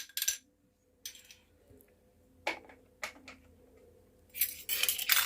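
A few separate clicks and knocks of kitchenware being handled, with a quick run of clinks near the end.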